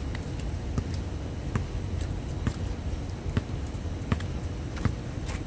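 A basketball bouncing on an outdoor hard court: sharp impacts at a fairly even pace, a little under one a second, over a steady low background rumble.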